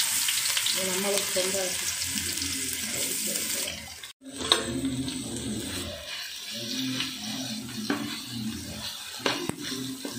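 Ginger-garlic paste sizzling in hot coconut oil in a metal pan, loud and hissing at first. After a brief break about four seconds in, the sizzle is quieter, with a steel spoon stirring and scraping against the pan and a few sharp clinks.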